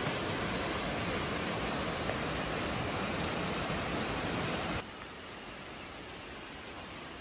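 Rushing water from a small waterfall and stream tumbling over boulders, a steady rush. About five seconds in it cuts off abruptly to a quieter steady hiss.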